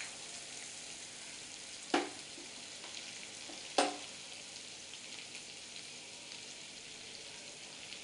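Butter sizzling as it melts in a hot kadai, a steady high hiss, with two sharp clicks about two and four seconds in.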